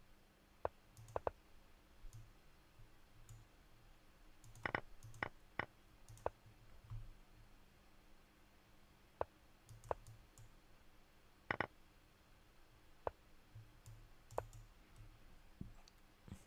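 Faint computer mouse clicks, single and in quick pairs, scattered a second or a few seconds apart as chess moves are made on an online board.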